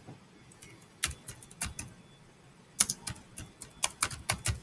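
Typing on a computer keyboard: quick, irregular key clicks in two runs, one about a second in and a longer one from about three seconds on, with a short pause between.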